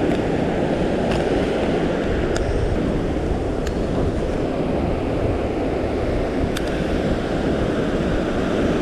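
Steady wash of surf with wind buffeting the microphone, and four faint sharp clicks spread through it.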